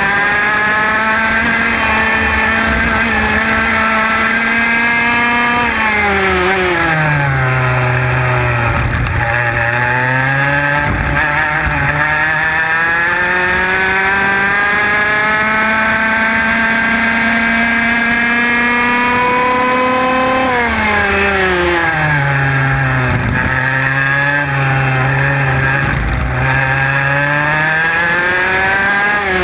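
IAME X30 125cc two-stroke kart engine heard onboard at racing speed. Its pitch drops sharply twice as the kart brakes into corners, about six seconds in and again about twenty-one seconds in, then climbs back steadily as it accelerates out.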